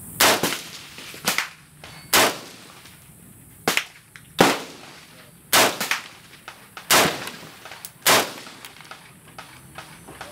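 Semi-automatic 5.56 mm rifle, a 20-inch M16 upper on an AR-15 lower, fired about eight times in slow, uneven succession, roughly a shot a second, then stopping.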